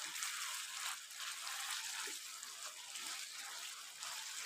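Faint sizzling of a saucy potato curry cooking in a frying pan while a spatula stirs it, with a few soft spatula sounds.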